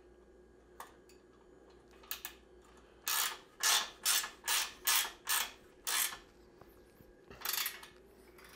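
Ratcheting 18 mm wrench tightening a rear axle nut. It makes a few light clicks, then a run of about seven quick ratchet strokes, roughly two a second, and one more stroke near the end.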